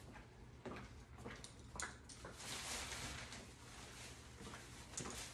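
Faint footsteps on a tile floor and the rustle of a plastic shopping bag being carried, with a few light scattered taps.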